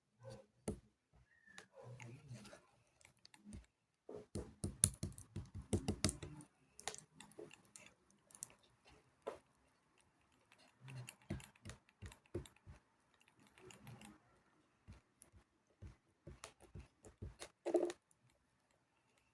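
Homemade glue slime being kneaded and squeezed by hand, giving a run of small sticky clicks and squishes, densest around four to six seconds in.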